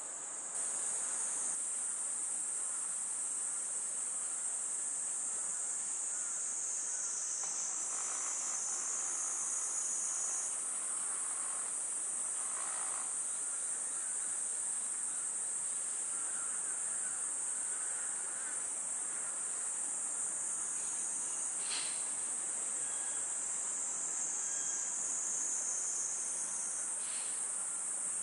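A chorus of summer cicadas droning steadily at a high pitch, swelling and easing a little.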